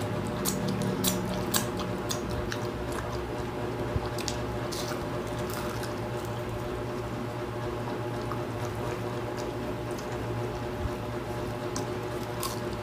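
Close-miked eating sounds of people chewing rice and fried fish with their mouths open: wet squelching, lip-smacking and sharp mouth clicks, busiest in the first couple of seconds, over a steady low hum.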